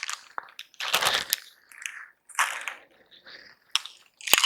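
Close-miked eating sounds from a young coconut: several short bursts of crunching and chewing, with a sharp click near the end.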